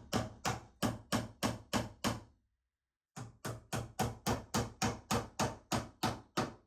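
Hammer driving nails to fix an electrical box to a wooden 2x4 stud: steady blows at about three a second, in two runs with a pause of about a second between them.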